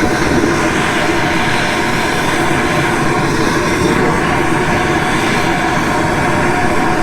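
Two handheld gas torches burning at once, a loud steady rushing noise with no breaks, as they heat the leaking radiator to flow solder over the repair.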